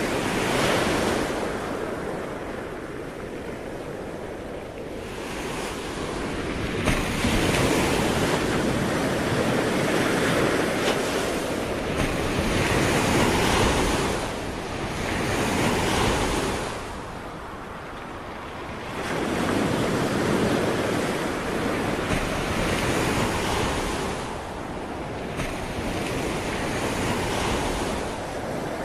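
Sea waves breaking and washing up the shore, each surge swelling and falling away over a few seconds, with wind on the microphone.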